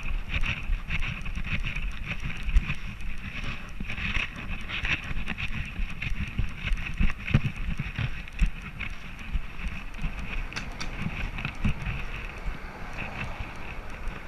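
Handling noise from a camera riding on a walking Border Collie's harness: a constant rumble of knocks and bumps with wind on the microphone and fur rubbing against it, and road traffic going by.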